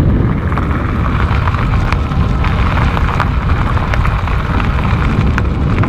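Wind buffeting the microphone over the steady rolling hiss of an electric fat bike's tyres on a rough track at about 24 km/h, with a few faint ticks of grit.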